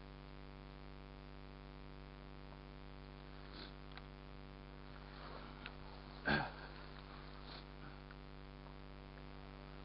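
Steady low electrical hum on the recording, with faint soft rustles and one short, louder noise a little past the middle.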